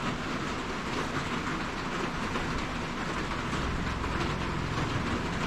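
Steady rain, dense pattering with no letup.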